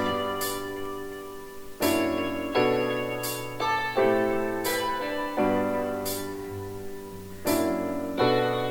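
Background piano music: sustained chords struck about every one and a half to two seconds, each fading before the next.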